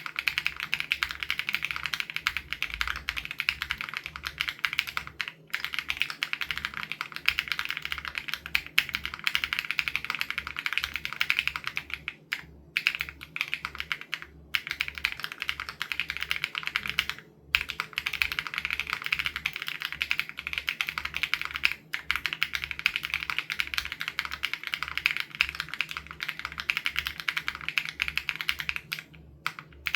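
Fast, continuous typing on an SPM AL87B mechanical keyboard with BSUN Raw switches, a dense stream of key clacks with a few brief pauses.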